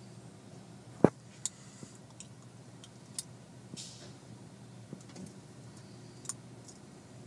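Steady low hum of a car wash bay heard from inside a car's cabin, with scattered small clicks and a short hiss; one sharp knock about a second in is the loudest sound.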